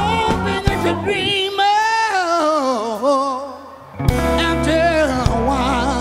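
A live soul band plays a slow ballad. About a second in, the band thins out and leaves a lone melodic line with wide vibrato that slides downward. The full band crashes back in about four seconds in.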